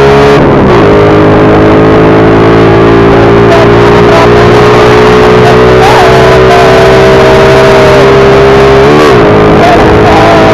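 Motorcycle engine running at steady revs while riding. Its pitch dips sharply and comes back about half a second in and again near the end.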